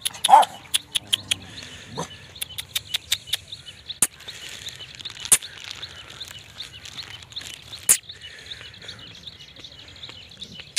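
A small dog gives one short cry about a third of a second in. Sharp clicks and faint bird chirps carry on around it.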